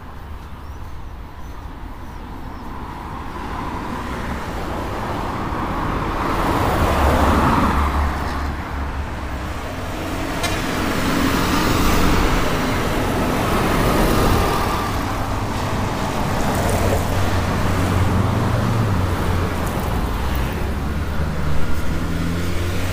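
Road traffic: several vehicles, among them a minibus, driving past one after another, the engine hum and tyre noise swelling and fading with each pass. There is a short sharp sound near the end.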